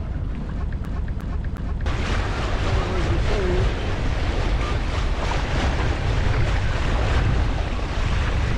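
Wind buffeting the microphone on a sailboat under way, with the rush and splash of water along the hull. About two seconds in, the rushing hiss turns abruptly louder and brighter and stays that way.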